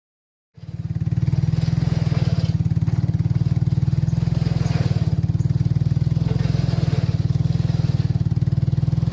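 Small gasoline engine of a band sawmill running steadily at a constant speed, with an even, rapid firing pulse. It starts up loud about half a second in.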